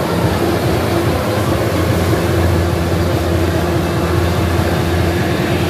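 Several motorcycles riding inside a steel-mesh globe of death, their engines blending into one loud, steady drone.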